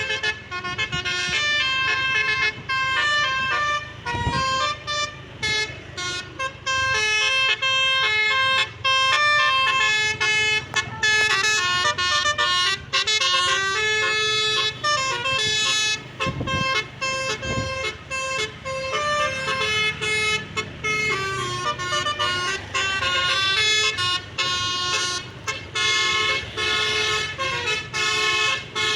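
Basuri musical bus air horn playing a quick melody of short, stepped notes, one tune running on with only brief breaks.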